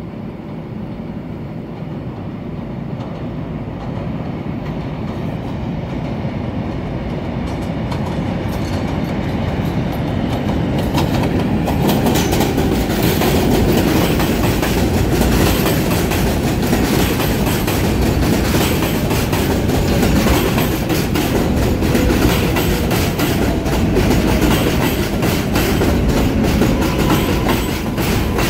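New York City subway train on elevated track running into the station alongside the platform. It grows louder over the first dozen seconds, then gives a steady wheel and rail clatter as the cars pass close by. A faint whine falls in pitch over the last several seconds as the train slows.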